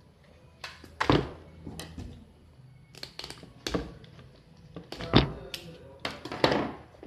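Handling noise: a string of dull knocks and brushing sounds as hands work a football boot close to the phone's microphone, the loudest about a second in and again near five and six and a half seconds.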